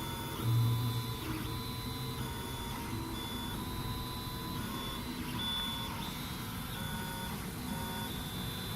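MINGDA MD-6L large-format 3D printer running a print. Its stepper motors whine in steady tones that change pitch every fraction of a second as the print head moves. A louder low hum comes in about half a second in and lasts roughly a second.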